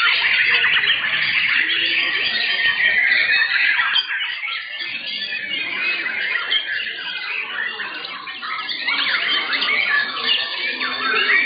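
Several white-rumped shamas (murai batu) singing at once in contest cages: a dense, overlapping tangle of fast whistles and chirps that never stops, easing slightly about four seconds in and again around eight.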